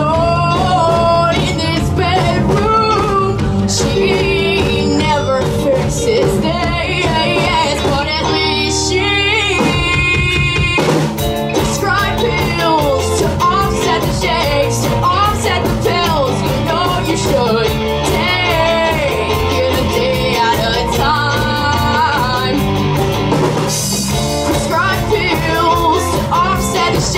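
Live rock band of electric guitars, bass and drums playing an instrumental passage, a lead line bending up and down in pitch over the band. About nine seconds in the drums drop out for a moment over a held chord, then come back in with cymbals.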